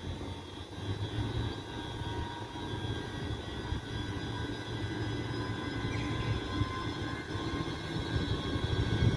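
Electric locomotive pulling a passenger train out of the station: a steady whine of several held tones over a low rumble, growing louder as it draws nearer.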